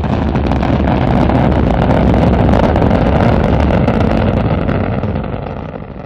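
Spacecraft rocket engine firing: a loud, steady rushing noise with a deep low end, which begins to fade near the end.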